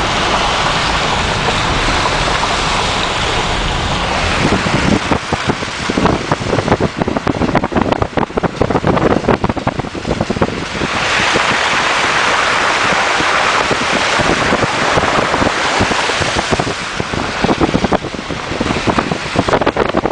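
Car driving through shallow water flowing over a gravel road, heard from inside the cabin: a steady rush of splashing water and tyre noise. From about five to ten seconds in, and again near the end, there is rapid clatter and knocking from gravel and stones under the tyres.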